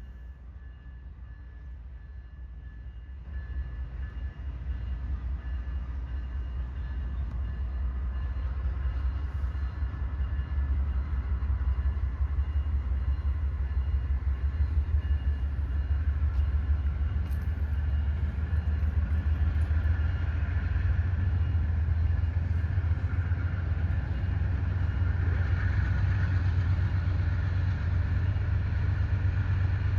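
Rebuilt GE Dash 8 diesel locomotive running under power with a steady low rumble. It gets louder from about three seconds in and keeps building as it draws closer.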